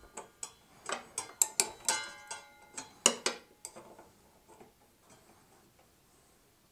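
Two flat steel wrenches clicking and clinking against a table saw's arbor nut and blade flange while the nut is loosened to take the blade off. A quick run of sharp metallic ticks, some with a brief ring, thins out to a few faint ones after about four seconds.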